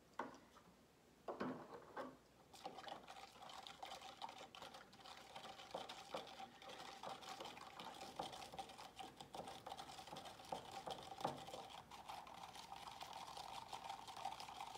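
A spoon stirring baking soda and water in a plastic cup: a fast, faint run of small ticks and scrapes that starts about two and a half seconds in. A few separate clicks come before it.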